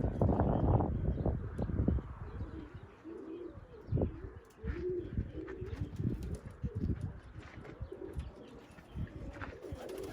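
Birmingham roller pigeons cooing, a run of repeated low, rising-and-falling coos. Wind buffets the microphone for the first two seconds, and there is a single sharp knock about four seconds in.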